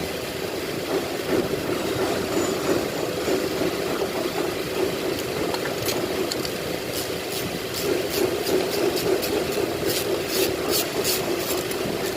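A steady mechanical hum, joined from about six seconds in by a quick run of short hissing spray bursts while the fuel injectors are being cleaned.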